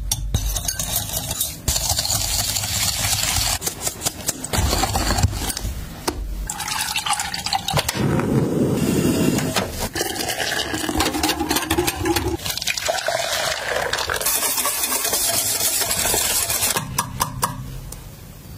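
A wire whisk clinks and scrapes rapidly against a glass bowl while beating egg yolks. Midway, milk pours into the bowl as the whisking goes on. Near the end the whisk stirs thick pastry cream in a metal saucepan.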